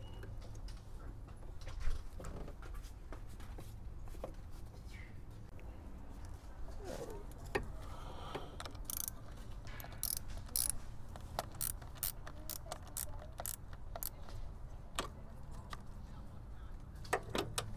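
Hand-tool work on a car battery as it is being removed: a scattered run of sharp metallic clicks, ratchet-like, coming thickest in the second half, over a steady low hum.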